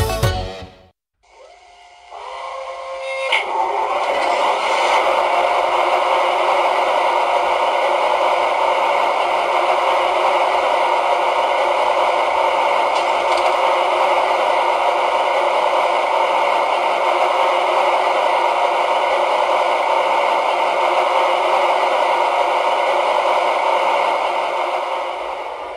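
Sound decoder of a Lenz gauge 0 model of a V 60 diesel shunting locomotive playing its diesel engine sound through a small loudspeaker: the engine starts up about two seconds in, then idles steadily with the locomotive standing still, easing off slightly near the end.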